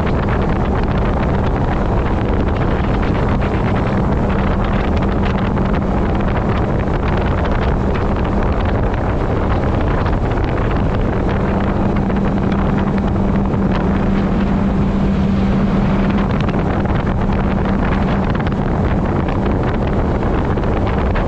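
Rigid inflatable speedboat running at speed: a steady engine drone holding one constant tone, under wind buffeting the microphone and rushing water from the hull and wake.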